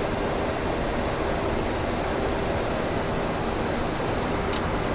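Steady rushing noise of air and engines on the flight deck of a Boeing 737-800 in its climb, with a faint steady hum beneath it and a couple of faint ticks near the end.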